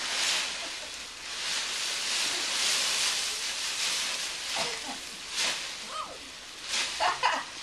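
Dry fallen leaves rustling and crunching as children dive and roll in a leaf pile, loudest for a few seconds early on, with a few short child vocalisations near the end.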